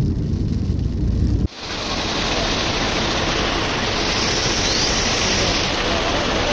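Low road rumble inside a moving car, then a sudden switch about a second and a half in to the steady hiss of rain falling on a wet street.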